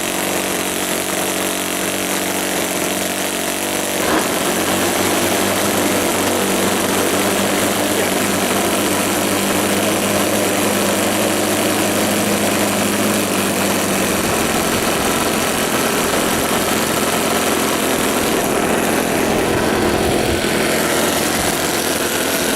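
Twin ASP FS30 four-stroke glow engines of a radio-controlled Cessna 337 model running together. The sound grows louder about four seconds in, and its note changes around fourteen seconds.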